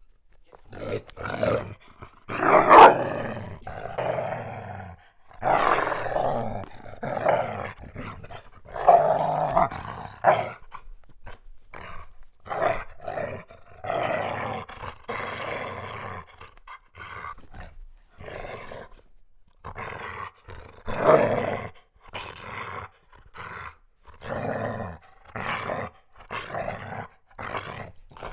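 Large German Shepherd dog growling loudly in a long series of rough growls, some short and some drawn out, with brief pauses between them. The growling comes from playing tug of war, not from a threat.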